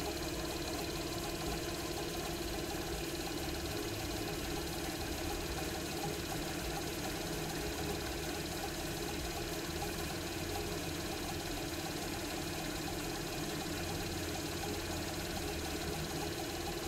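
Small benchtop cue lathe's electric motor running with a steady, unchanging hum, spinning a pool cue shaft.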